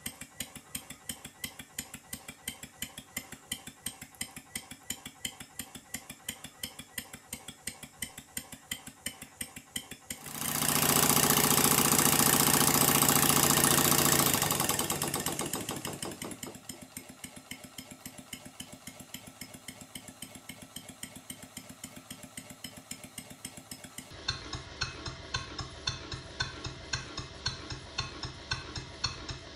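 Stuart Sirius model steam engine running on compressed air, giving a fast, even beat of exhaust puffs and mechanical clicks. About ten seconds in, a loud rush of noise swells over it for roughly five seconds, then fades away.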